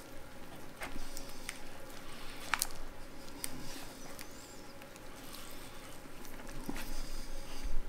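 Walmart deli fried chicken being pulled apart by hand: crisp breading crackling and meat tearing, with scattered sharp crackles, the loudest about two and a half seconds in.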